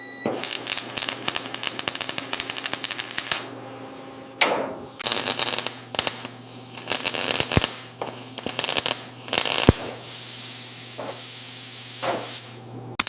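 Workshop tool noise: runs of rapid clicking and rattling and short noisy bursts, then a steady hiss of about two seconds near the end, over a constant low hum.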